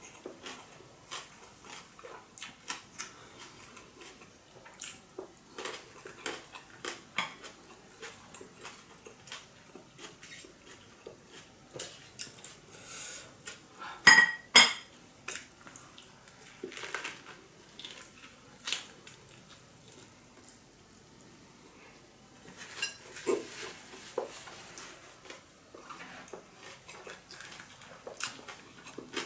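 Close-up eating sounds of a fresh spring roll of rice paper, herbs and steamed fish being chewed, heard as many small sharp clicks, with light clatters like dishes. Two loud clicks come close together about halfway through.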